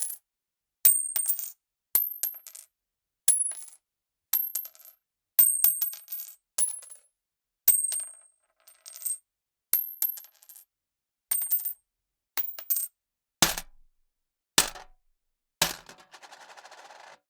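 A string of separate metal coin sound effects, each a second or less with silence between: coins dropping and clinking with high, bright rings. Near the end come three heavier hits with more body, then a longer steady rattle of coins.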